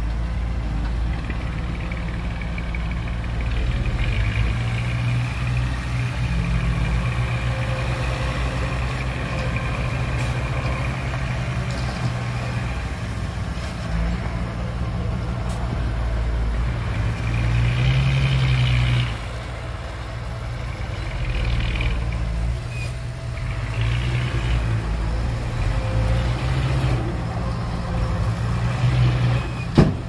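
Heavy diesel engines of a crawler bulldozer and a dump truck running under working load, the engine note rising and falling, loudest a little past halfway before dropping back. A sharp knock near the end.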